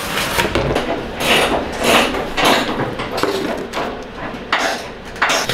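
Utility knife cutting through a sheet of cardboard in a quick series of short scraping strokes, about two a second.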